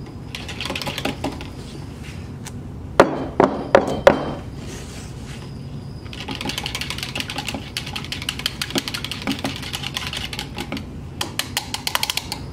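A utensil stirring cold-process soap batter in a plastic pitcher: a few sharper knocks against the pitcher about three seconds in, then a quick, even run of light clicks as the stirring goes on.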